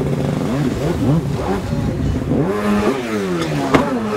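Stand-up jet ski engine revving up and down over and over as the rider blips the throttle, its pitch rising and falling faster toward the end. A single sharp knock comes near the end.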